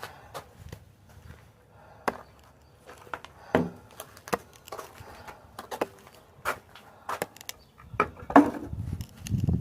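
Scattered knocks and clatter of yard debris being handled and set down, the loudest knocks about a third of the way in and again near the end.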